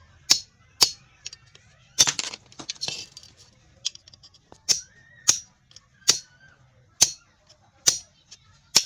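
Sharp metallic strikes, about one a second with irregular spacing, from hammering on a washing machine motor to get its copper winding out.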